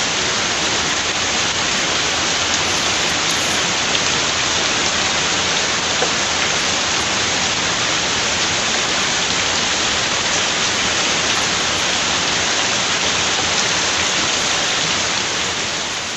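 Heavy rain falling, a steady dense hiss that starts to fade out right at the end.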